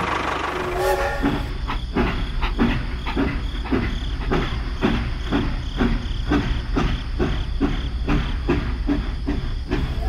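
Toy steam locomotive on plastic track, chuffing in an even rhythm of about three beats a second over a steady low hum, starting about a second in.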